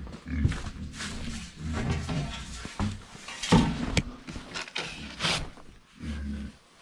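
Pigs grunting as they eat at feeding time, with two louder, brief noises about three and a half and five seconds in.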